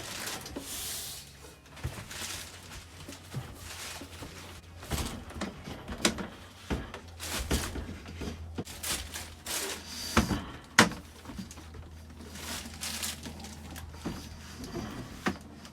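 Irregular knocks, clunks and clicks of handling and fitting, the loudest about eleven seconds in, over a steady low hum that starts about two seconds in.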